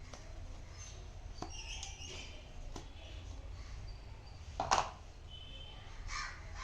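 Scattered light clicks and taps from handling the watch's sport band and its packaging, with one sharper click a little before five seconds. Birds chirp faintly in the background and a crow caws near the end.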